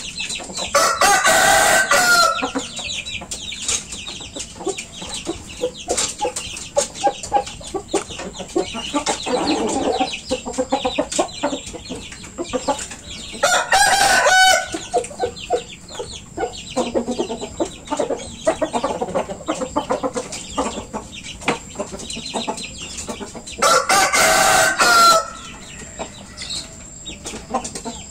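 Bangkok gamecock roosters crowing three times, each crow lasting about a second and a half: one about a second in, one near the middle, and one a few seconds before the end. Softer clucking and small clicks fill the gaps between the crows.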